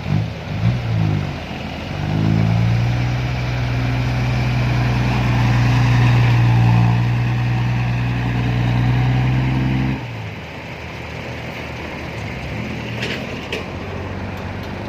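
Heavy diesel engine revving up, its pitch wavering at first, then holding a steady high note for about eight seconds before dropping back suddenly to a lower run about ten seconds in.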